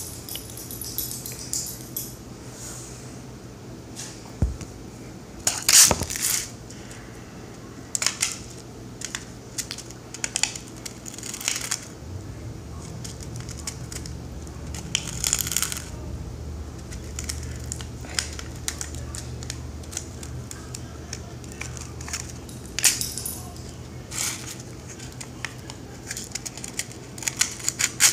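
Metal kitchen utensils clinking and scraping against a metal muffin tin and dishes in scattered short strokes, the loudest cluster about six seconds in. A low steady hum runs through the second half.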